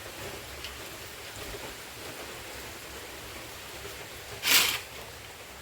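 A steady low hiss, with one short, loud rustle about four and a half seconds in.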